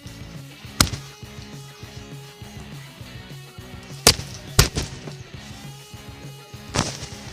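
Background music with a repeating bass line, cut by sharp loud bangs about a second in, twice around four to five seconds in, and once more near the end.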